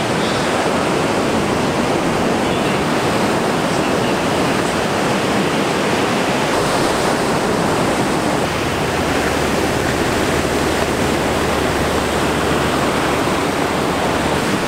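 Ocean surf breaking and washing onto the shore, a steady, even rush of whitewater.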